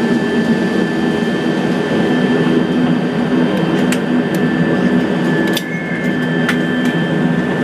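Cabin noise of a Dornier 328 turboprop rolling along the runway after touchdown: a steady, loud engine and propeller drone with a low hum and a thin high whine. A few sharp clicks come through in the second half.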